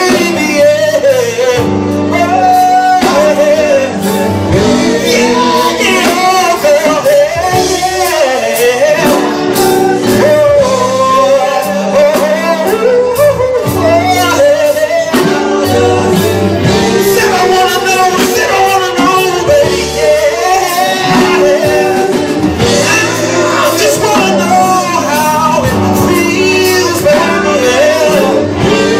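Live band of electric guitar, bass guitar, drums and keyboards playing a slow groove while a lead vocalist sings over it.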